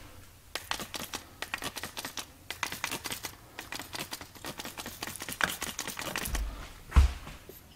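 Trigger spray bottle of soapy water squirted again and again in quick succession, a rapid, irregular run of clicking spritzes, followed by a single heavy thump near the end.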